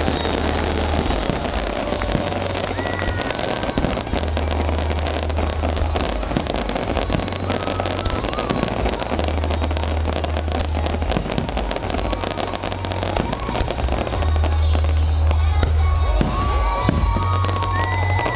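Fireworks display: a steady stream of cracks and bangs from bursting aerial shells, heard over the music that the show is set to.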